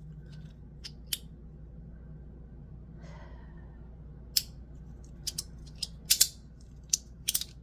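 Aluminium two-click magnetic fidget slider snapping between its positions, its N52 magnets pulling the halves together with sharp clicks. One click comes about a second in, then a quicker, irregular run of clicks over the second half.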